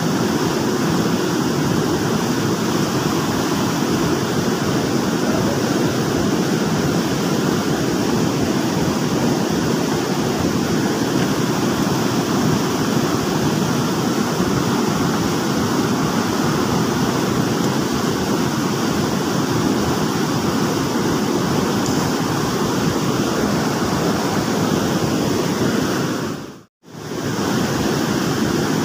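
Steady rush of flowing stream water, a loud even noise with no distinct events; the sound drops out completely for a moment near the end.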